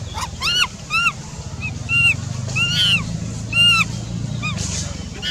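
A run of short, high-pitched animal calls, each rising then falling in pitch, about two a second, over a low steady hum.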